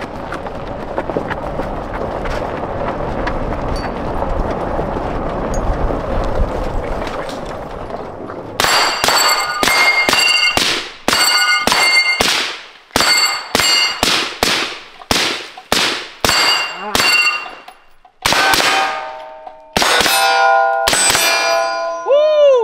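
AR-15-type rifle fired in a rapid string of shots at steel targets, each hit followed by the plates ringing. For the first eight seconds there is only a steady rushing noise before the shooting begins.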